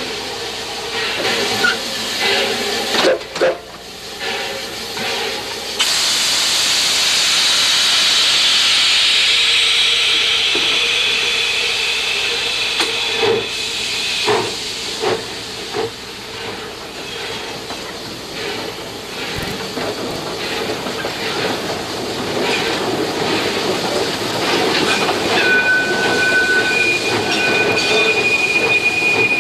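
Cab sounds of the 4-4-0 steam locomotive Reno at work: a loud rush of steam hiss swells about six seconds in and fades over the next several seconds, over scattered metallic clanks and knocks. Near the end a thin, steady high tone comes in and holds.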